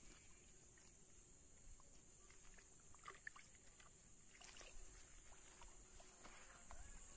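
Near silence: faint outdoor ambience with a steady high hiss and a few light scuffs and clicks.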